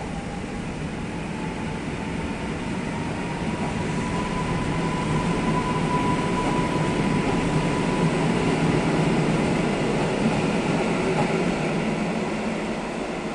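An electric multiple unit running along the station track. Its rumble grows louder and peaks in the second half, and a thin whine rises slightly in pitch over the first half.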